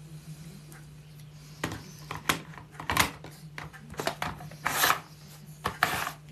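Clicks, scrapes and rattles of hard parts being handled, starting about a second and a half in: stuffing nozzles being tried on a meat grinder. A faint steady low hum sits under it.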